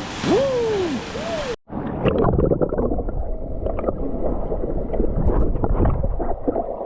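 Rushing water, then after a sudden cut about a second and a half in, muffled gurgling and sloshing water with many small knocks and a low rumble.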